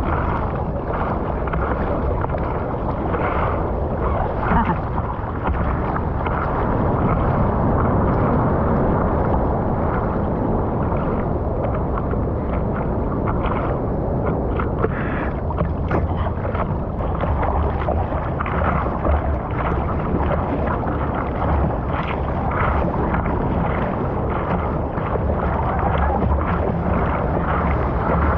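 Steady rush of surf and sea water, a dense noise heavy in the low end that goes on without a break.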